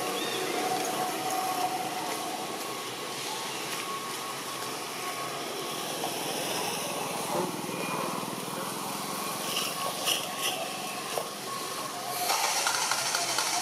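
Steady outdoor background din with a few faint distant calls. It grows louder about twelve seconds in.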